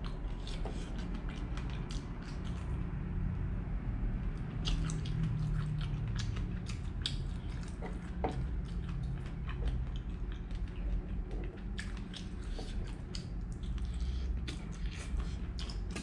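A cooked prawn being peeled by hand, its shell crackling in many small, irregular clicks as it is pulled off, with some chewing. A low steady hum lies underneath.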